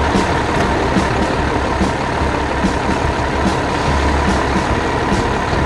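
Heavy truck engine running steadily, the sound of the tow truck at work, with a steady high whine over it and light ticks at a regular beat.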